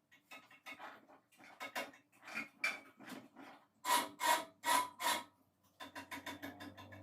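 A series of short rubbing strokes, the four loudest coming in quick succession a little past the middle, each with a slight ring.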